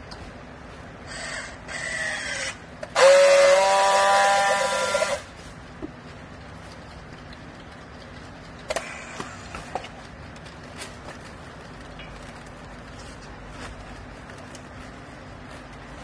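Handheld battery-powered strapping tool working a yellow plastic strap around a compressed bale. A short rising motor whine comes about a second in, then a louder, steady whine lasting about two seconds, as the tool tensions and friction-welds the strap. A few light clicks follow.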